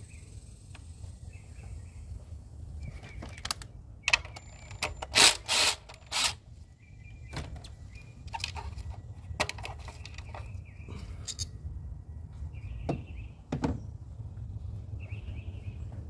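Sharp plastic clicks and knocks of a failed ignition coil pack being unplugged and pulled from a Hyundai four-cylinder's coil rail, a scatter of them with the loudest cluster about five seconds in. Birds chirp now and then over a steady low background rumble.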